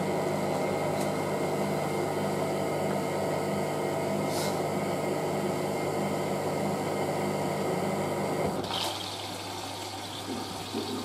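Hotpoint 9530W washing machine's drain pump running with a steady hum and water gurgling, pumping out the sudsy wash water, then cutting out about eight and a half seconds in, leaving quieter water sounds in the drum.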